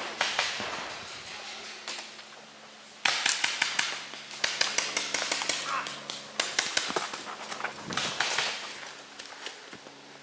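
Paintball markers firing in rapid strings of sharp pops, several shots a second, in bursts from about three seconds in until near the end.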